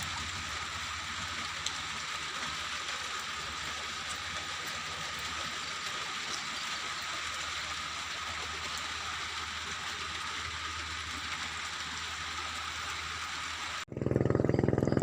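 Steady rain falling, an even hiss without a break. Near the end it cuts off abruptly and a louder, low droning sound begins.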